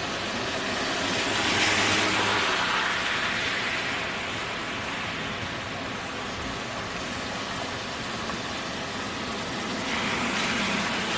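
Steady rain hiss with traffic: a vehicle swells past about two seconds in, its engine hum briefly audible, and another comes through near the end.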